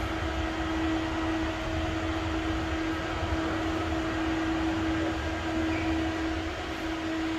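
Steady mechanical hum with one constant mid-pitched tone over a low rumble, like a fan or air-conditioning unit running.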